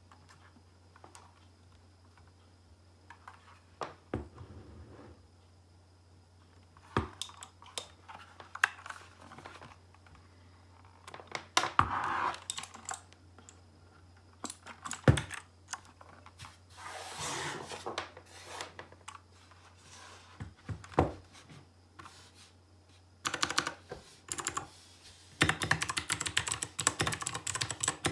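Typing on a Royal Kludge RK61 mechanical keyboard fitted with custom switches. Scattered single key presses and short runs of clicks come first, then fast continuous typing near the end.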